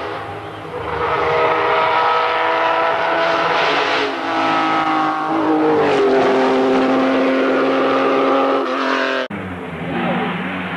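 Porsche 911 rally car's flat-six engine revving hard as it climbs toward and passes close by, the note dipping at a gear change about four seconds in and falling as it goes past. About nine seconds in the sound cuts abruptly to an Opel Kadett rally car's engine approaching.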